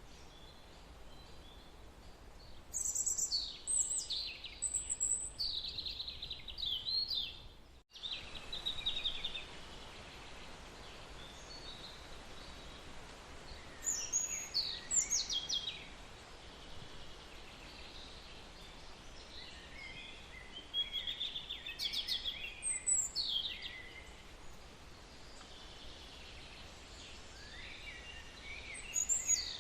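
Birds chirping in bursts of quick, falling calls, over a faint steady background hiss.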